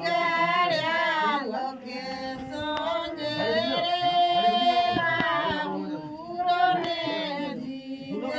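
A group of women singing a traditional wedding song together, holding long notes that slide up and down, with one lower voice held steady beneath.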